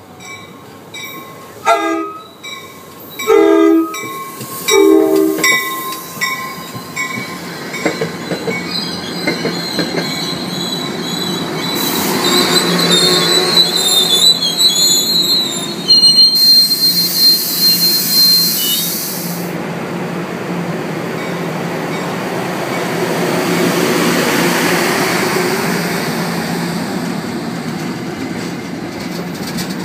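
An NJ Transit push-pull train's horn gives three short blasts on the approach, over a crossing bell dinging steadily. The Comet coaches then roll past, the wheels rumbling on the rails, with a high metallic wheel squeal for several seconds midway through.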